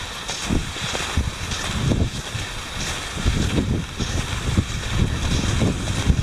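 Wind rumbling on the microphone, with repeated swishes of cross-country skis gliding and poles planting in the groomed snow tracks as the skier strides along.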